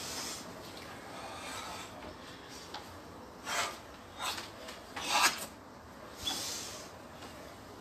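A martial artist moving through a sequence of strikes and stances: a handful of short rasping sounds of movement, the loudest a little after five seconds in.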